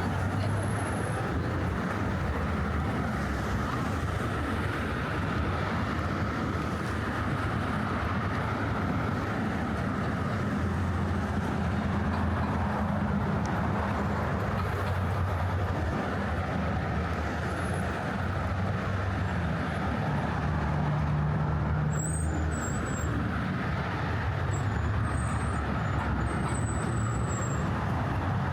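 Steady road traffic, with cars and trucks passing in a continuous engine and tyre hum. A few faint high squeaks come in the last third.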